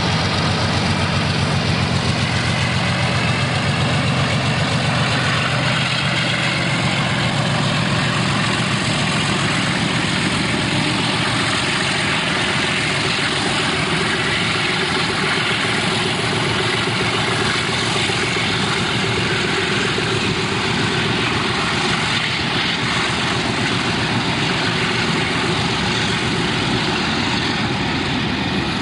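Diesel train engine running with a loud, steady drone. A deep low rumble is strongest in the first several seconds, then eases slightly.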